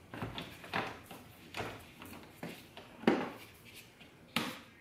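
Plastic trim panel of a C8 Corvette's center console being pressed and knocked into its clips: a series of about six sharp plastic knocks and snaps, the loudest about three seconds in.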